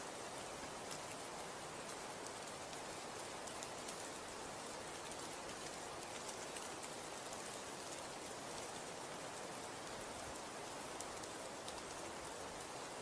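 Falling snow: a steady soft hiss with many faint, scattered tiny ticks of flakes landing.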